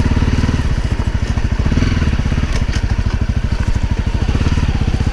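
Honda CRF250L's single-cylinder four-stroke engine running at low revs, a steady, rapid chugging, with a few light clicks about halfway through.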